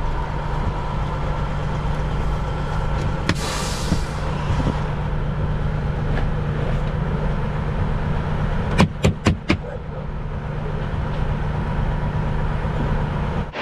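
Semi-truck's diesel engine idling with a steady low hum. A short hiss comes about three and a half seconds in, and four quick sharp clicks in a row come about nine seconds in.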